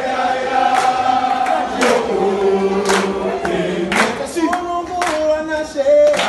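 Choir of young mixed voices singing together, holding long notes, with a sharp beat about once a second.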